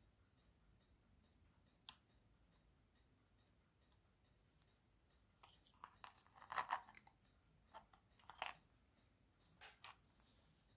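Near silence broken by faint crackles and clicks of small hand work at an electronics bench. There is one click about two seconds in, then a cluster of short crackles from about halfway, loudest around two-thirds of the way through. A faint high ticking about twice a second runs underneath.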